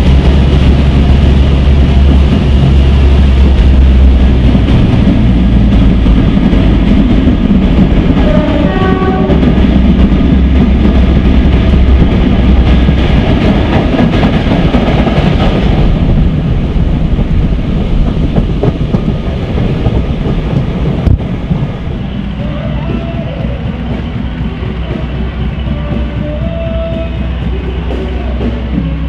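Twin Maybach MD650 diesel engines of Class 42 Warship diesel-hydraulic locomotive D821 running under load, a loud, deep, steady drone, with a brief horn sound about nine seconds in. About twenty-one seconds in, the sound cuts to the same locomotive running more quietly as it stands at the platform.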